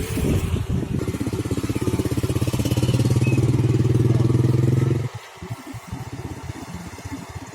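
An engine running steadily, growing louder over a few seconds, then cutting off abruptly about five seconds in.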